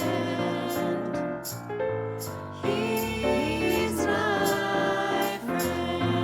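Choir singing with piano accompaniment.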